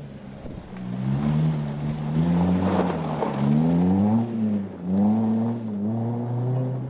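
Ford Fiesta ST rally car engine revving hard as it passes and pulls away. The revs rise and fall with each gear change, dip briefly just after four seconds, then climb again.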